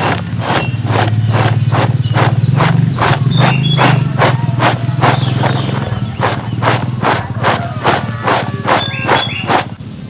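Cardamom pods being tossed in a round woven bamboo winnowing tray. It makes a rhythmic rattling swish about three to four times a second, which stops near the end. A steady low engine hum runs underneath.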